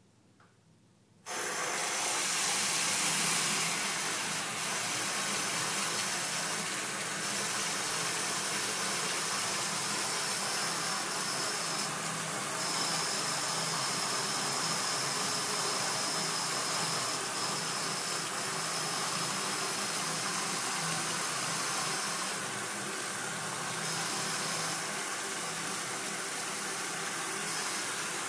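A bathroom sink tap is turned on about a second in, and water then runs steadily from the faucet into the basin. A thin high whistle sounds through the middle stretch.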